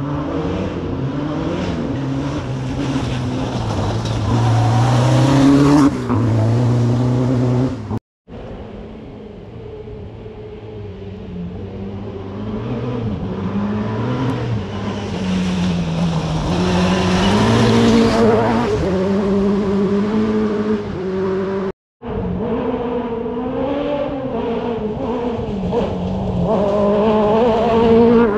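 Rally car engines revving hard and shifting through the gears as they approach on a dirt forest stage, the engine pitch rising and falling and getting louder. Three separate passages, each cut off abruptly, about eight seconds in and again about twenty-two seconds in.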